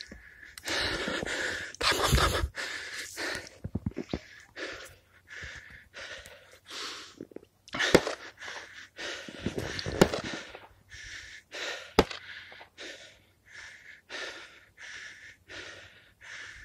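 Heavy, fast breathing close to the microphone, a breath about every half second to a second, with three sharp loud cracks spaced about two seconds apart.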